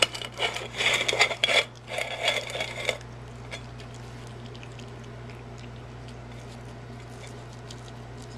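Dish and utensil clatter, scraping and tapping sounds from serving wet cat food out of a can, for about three seconds. It then stops, leaving a steady low hum with a few faint soft ticks.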